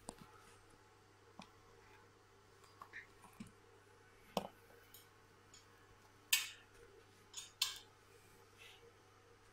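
Handling noise: scattered sharp clicks and brief crinkles of plastic bag film, the two loudest about six and a half and seven and a half seconds in, over a faint steady hum.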